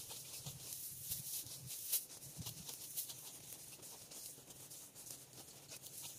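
Dry wheat stalks crackling and rustling as they are cut with hand sickles: a run of short, crisp cuts, the loudest about two seconds in.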